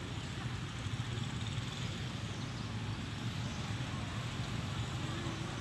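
Steady low rumbling background noise with a faint hiss over it, with no distinct events.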